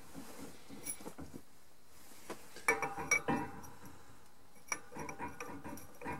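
Small steel parts clinking against the aluminium crankcase as a new crankshaft bushing and a socket used as a pressing driver are set square over the bore: a flurry of light metallic clinks with short ringing about three seconds in, and a few more about five seconds in.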